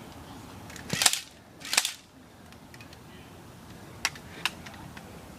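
Airsoft guns firing: two loud short volleys about a second apart, then two single sharper shots about four seconds in.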